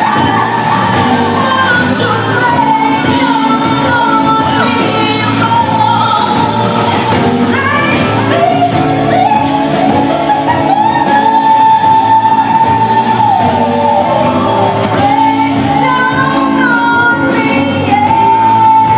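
Live band music with a singer holding long high notes and sliding through vocal runs over the accompaniment.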